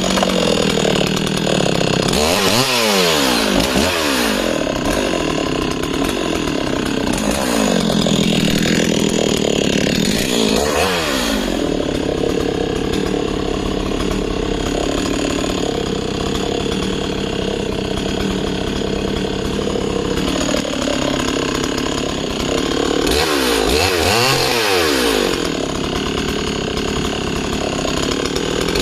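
Husqvarna 61 two-stroke chainsaw with a 15-inch Oregon bar and full-chisel chain running hard while cutting discs off a log. Its engine pitch dips and climbs again a few times: about two seconds in, around ten seconds, and near twenty-four seconds.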